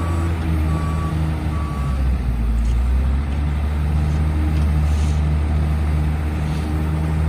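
Komatsu WA250-5 wheel loader's diesel engine running steadily as the machine drives, with its reversing alarm beeping three times in the first two seconds, about once every 0.8 seconds, then stopping.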